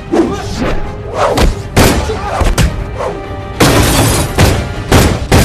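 Action-film soundtrack: music under a rapid series of heavy hits and thuds, with a longer crashing, shattering burst a little past the middle.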